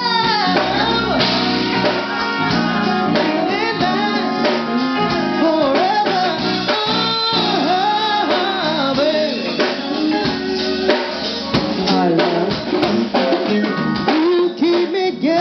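A woman singing with a live jazz-funk band, her voice gliding up and down over drum kit and guitar.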